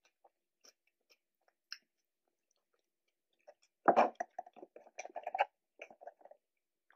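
Close-miked eating sounds of a fried chicken sandwich: soft, scattered chewing clicks, then about four seconds in a loud crunchy crackle followed by a quick run of crisp crackles lasting about two seconds.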